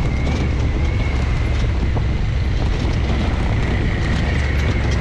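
Side-by-side UTV running steadily as it drives along a dirt track, a deep engine rumble with a thin high whine above it and wind on the microphone.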